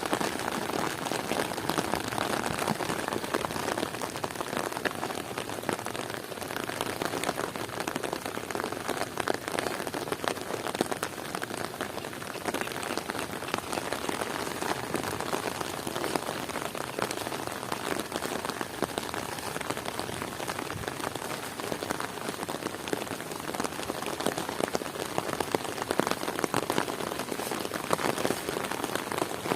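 Heavy rain falling steadily, a dense patter of drops hitting the ground and surfaces.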